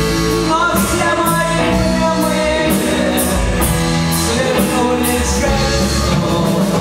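A live rock band playing an instrumental passage: bass, electric guitar and keyboard notes over a drum kit, with a cymbal struck steadily about twice a second.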